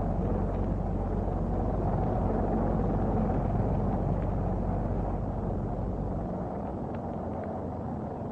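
V-2 rocket engine sound effect: a deep, steady rumble of rocket exhaust that begins to die away about five to six seconds in.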